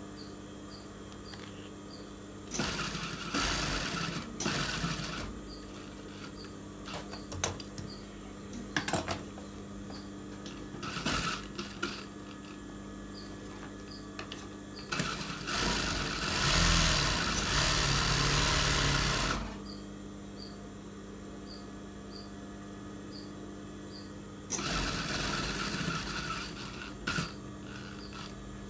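Industrial sewing machine stitching a shirt collar in four short runs, the longest and loudest about 15 to 19 seconds in. Its motor hums steadily between runs, with a few light clicks from handling the machine.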